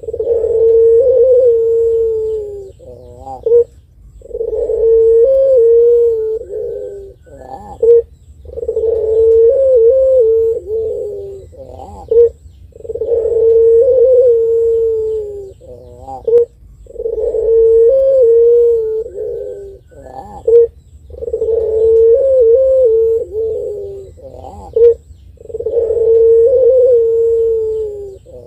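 Puter pelung, a long-voiced breed of Barbary (ringneck) dove, cooing: about seven long, drawn-out coos at a steady pitch with small wavers. Each coo is opened by a short sharp note, and they follow one another with brief pauses.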